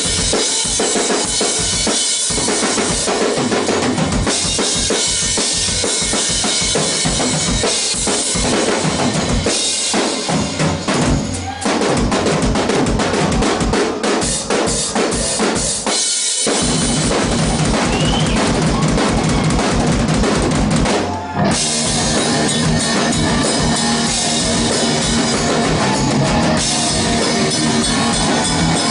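Live rock drum kit playing a solo, with dense bass drum and snare strokes. About sixteen seconds in it breaks off briefly, then runs on with fast, even bass drum strokes.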